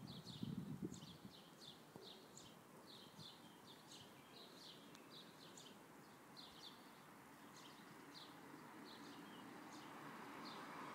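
Small songbirds chirping faintly: short high chirps repeating about two or three times a second, fading out shortly before the end. A car's road noise rises near the end.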